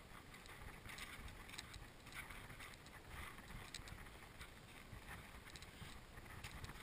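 Faint footsteps crunching on a sandy path at an irregular walking pace, over a low rumble of wind on the microphone.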